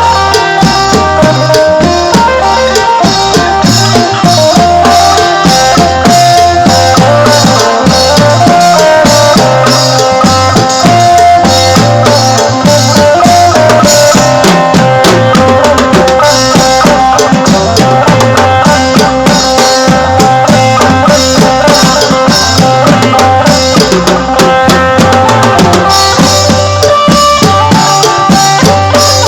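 Live Isan phin prayuk band playing an instrumental dance tune, a sustained melodic lead over drum kit and bass with a steady beat.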